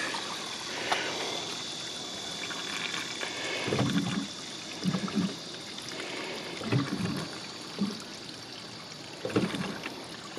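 Gray water draining from an RV gray tank through its open dump valve into a corrugated sewer hose: a steady rushing flow with a few short, louder low gurgles.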